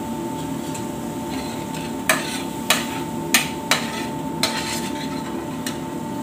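Metal spoon stirring and scraping spice paste being sautéed in a stainless steel frying pan, clinking sharply against the pan about seven times from about two seconds in. A steady hum runs underneath.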